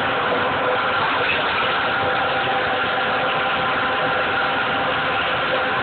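Hand-held immersion blender running steadily with its blade down in maple sauce, whipping air into it to make a foam.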